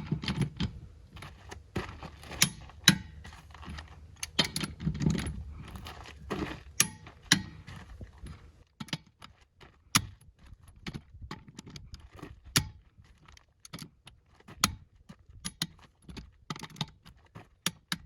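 Sharp metallic clicks and clinks at irregular intervals, from a wrench working the wheel nuts of a Unimog as they are brought up to torque.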